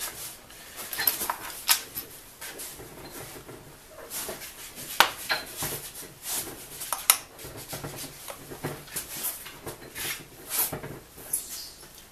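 Irregular clicks and light knocks of hands handling a steel C-clamp and small wooden jig blocks on a board, with the clamp's screw being turned. Two sharper knocks come about five and seven seconds in.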